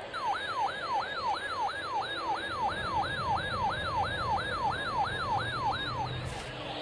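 Weather alert radio receiver's built-in siren alarm: a rapid electronic yelp of about two sweeping tones a second that cuts off abruptly after about six seconds. It signals an incoming alert, here a Required Weekly Test.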